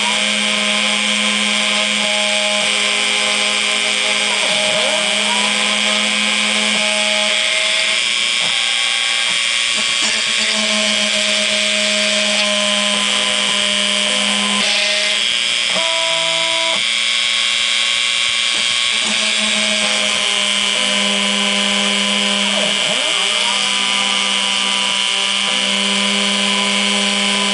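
A Dremel rotary tool runs at a steady high whine as its bit engraves into a wooden board. Underneath it, a homemade CNC mill's stepper motors whine, their pitch stepping every few seconds and sweeping up and down as the axes speed up, slow and change direction.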